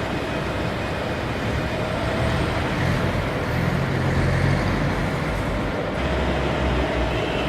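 Steady running noise of a CNC hydraulic press brake, its hydraulic pump giving a steady hum with a faint whine, and a low rumble that swells in the middle and again near the end.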